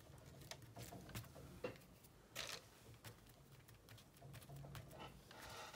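Faint handling of paper pieces being placed and pressed down by hand onto a folder cover: scattered light taps and short rustles, a slightly longer rustle about two seconds in and another near the end, over a low steady room hum.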